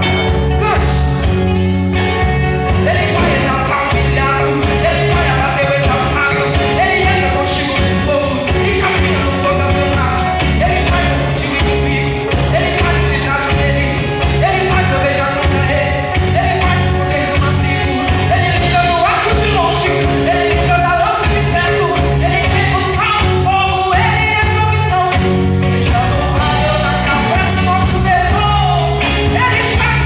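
Live gospel band playing: a woman sings lead into a microphone over drum kit, electric guitars, keyboard and acoustic guitar, with a steady drum beat.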